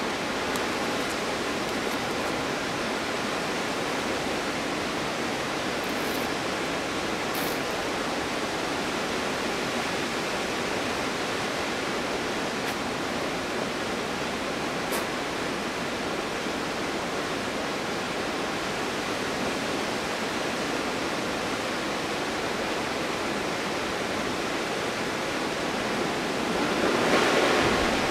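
Stuibenfall waterfall in winter: falling water making a steady rushing noise, swelling briefly louder near the end.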